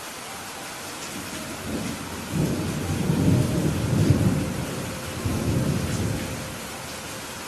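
Steady rain with a low rumble of thunder that builds about two seconds in, peaks mid-way and fades out near the end.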